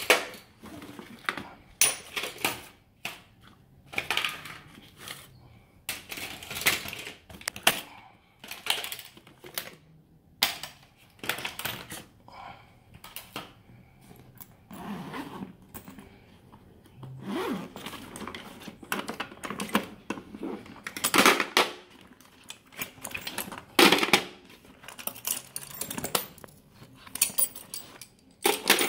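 Hand tools clinking and knocking together and the stiff vinyl of a tool bag rustling as tools are handled in and out of its pockets, in irregular clicks and clatters with a few louder knocks.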